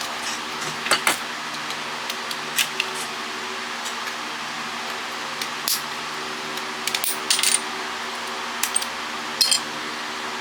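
Scattered sharp clicks and clatters of small hard plastic and metal parts being handled and dropped as a cordless phone is taken apart, over a steady fan hum.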